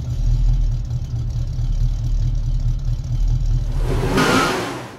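Car engine running with a deep, steady low rumble. About four seconds in there is a louder rushing burst, and then the sound fades out.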